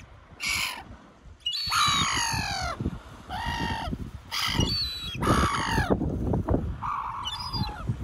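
Gulls calling: about six harsh calls, each under a second, several sliding down in pitch, over wind rumbling on the microphone.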